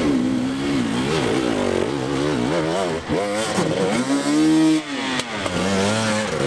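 Dirt bike engine revving up and down repeatedly, the pitch wavering quickly at first, then one long rise and fall about three to five seconds in.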